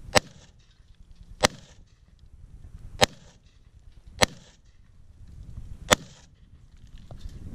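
AR-15 rifle fired semi-automatically: five single shots at an unhurried pace, about one to one and a half seconds apart, each with a short echo trailing off.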